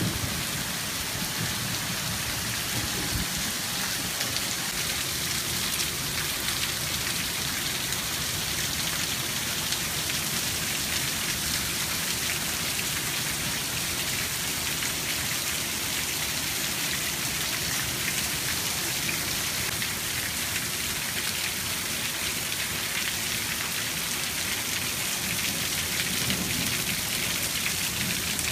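Heavy rain falling steadily, a dense hiss of drops hitting the ground, gravel and standing water.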